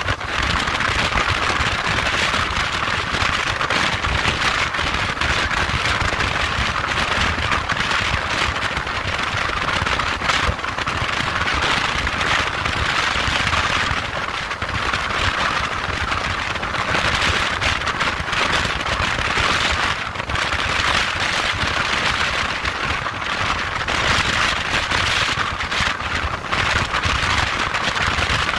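Steady wind rushing and buffeting over the microphone of a motorcycle at highway speed, with a low rumble of engine and road beneath it.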